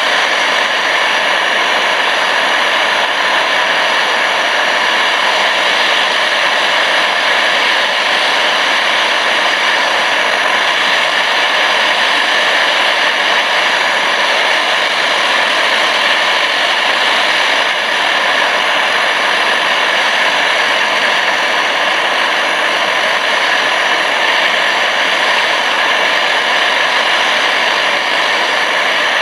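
MSR DragonFly liquid-fuel camping stove burning at a high flame, giving a loud, steady rushing hiss that does not change.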